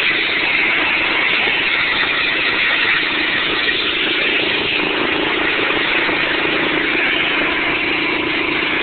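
Pressure washer running steadily on a tile roof: an even hiss over a constant engine hum.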